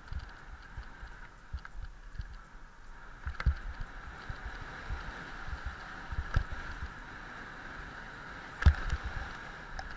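Mountain bike riding fast down a dirt track: a steady rushing hiss of tyres and air, broken by irregular thumps and knocks as the bike hits bumps, the loudest knock near the end.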